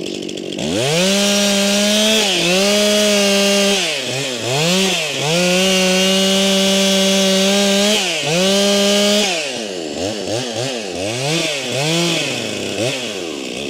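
Stihl two-stroke chainsaw at full throttle, boring into the base of a tree trunk: the engine note holds high and steady under load with brief dips. From about nine seconds in it is revved up and down repeatedly, about once a second.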